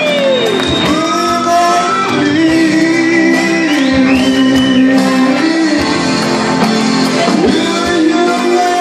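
Live band music with long held notes, with shouting from the audience.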